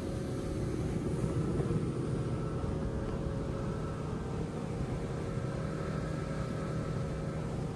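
Motorboat engine running steadily while the boat is underway, a constant drone with a few held tones.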